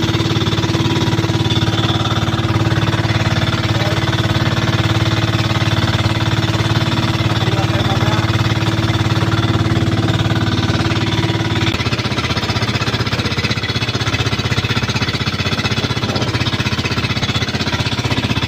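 A fishing bangka's engine running steadily with a fast knocking beat. Its steady hum changes about twelve seconds in, while the beat carries on at the same loudness.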